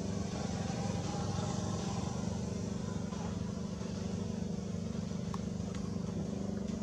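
A steady low motor drone, like an engine running, unchanging throughout.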